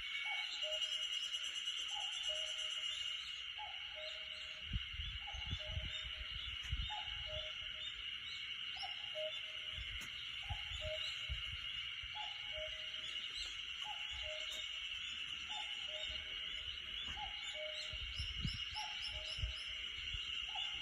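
A cuckoo calling its two-note falling "cuck-oo" over and over, about once every second and a half to two seconds. Under it runs a steady high hiss-like drone, with faint high chirps from other birds.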